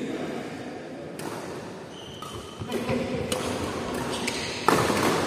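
Badminton rackets striking a shuttlecock several times in a rally, sharp hits echoing in a large hall, the loudest near the end.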